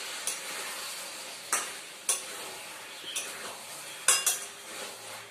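A spatula stirring a thick jackfruit curry in a pan, knocking and scraping against the pan about half a dozen times, over a steady sizzle of the masala frying in its own oil with no water added.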